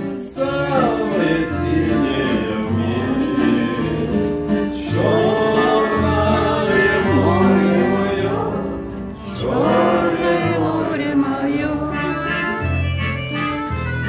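A man singing a Russian song in phrases, accompanied by a nylon-string classical guitar and an accordion holding low chords.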